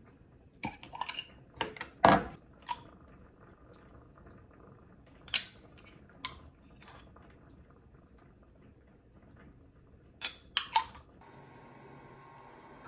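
A sauce bottle and its cap being handled over a salad bowl: sharp clicks and light knocks in three short clusters, the loudest about two seconds in. Near the end, steady faint room noise.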